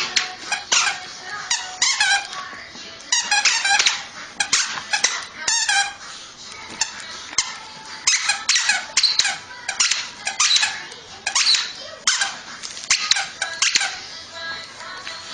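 Rapid high-pitched squeaking, many short wavering squeaks a second in clusters, with a lull around the middle and fading near the end.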